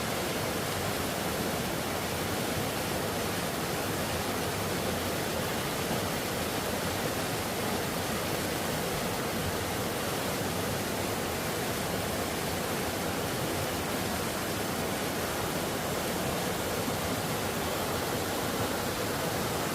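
Mountain valley stream, water rushing steadily.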